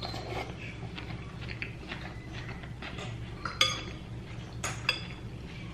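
Cutlery clinking and scraping on a plate, with two sharp ringing clinks in the second half.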